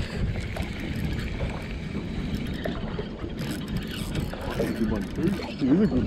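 A fishing reel being wound, its mechanism clicking, while a hooked fish is played, over steady wind and water noise on the boat. A voice comes in near the end.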